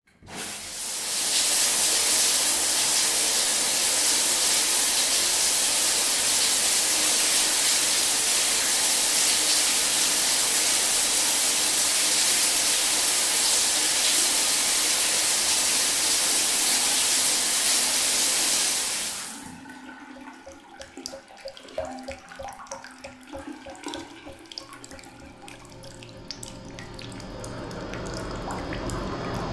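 Shower running: a steady hiss of spray that cuts off suddenly about two-thirds of the way through, leaving fainter, uneven sounds.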